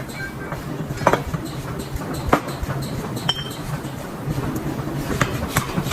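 Scattered metallic clinks and knocks of steel parts being handled in a flange factory, a few seconds apart, with one brief ringing clink, over a steady low machine hum.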